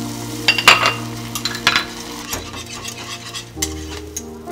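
A wire whisk stirs and scrambles eggs in a small saucepan, scraping and tapping sharply against the metal. The loudest tap comes under a second in. Underneath is a light sizzle of egg cooking in butter.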